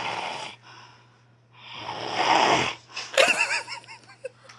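A man snoring heavily in his sleep, two long rasping snore breaths about two seconds apart. About three seconds in comes a short, loud wavering vocal sound, followed by fainter breathing.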